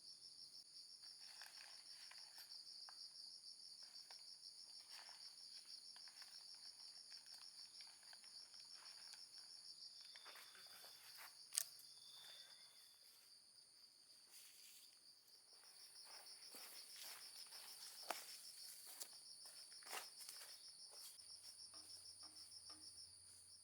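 Faint steady chorus of insects trilling high and fast, with scattered soft clicks and taps and one sharp click about halfway through.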